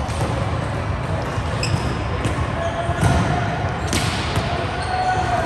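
Indoor volleyball game: sharp ball hits about a second and a half, three and four seconds in, the one at three seconds the loudest, with short squeaks from the court over steady hall noise.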